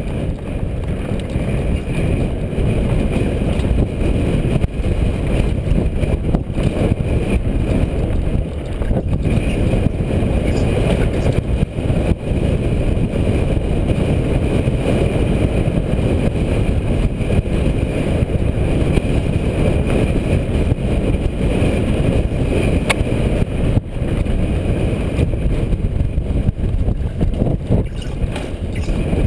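Mountain bike riding fast downhill on a dry dirt trail: a steady, loud rumble of wind on an action camera's microphone mixed with tyres on dirt and the bike rattling over bumps.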